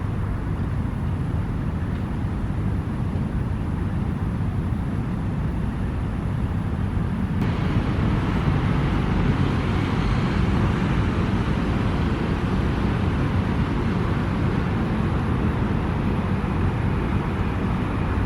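Steady low rumble of city traffic, swelling a little with more hiss from about seven seconds in.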